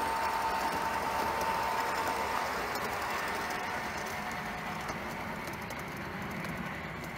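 1:32 scale Burlington Zephyr model train running along garden railway track, its wheels rumbling on the rails. There is a steady whine over the first couple of seconds, and the sound fades gradually as the train pulls away.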